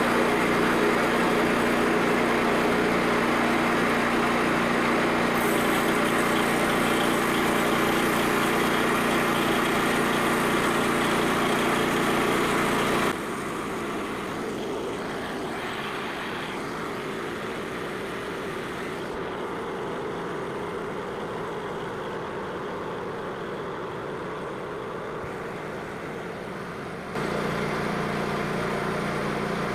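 Frontier bandsaw mill's engine running steadily at full throttle, driving the band blade. About 13 seconds in the sound drops abruptly to a quieter, thinner hum, and the engine sound comes back just as abruptly a couple of seconds before the end.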